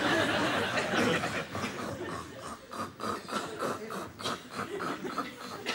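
Audience laughter that breaks into quick, pulsing bursts of about four a second.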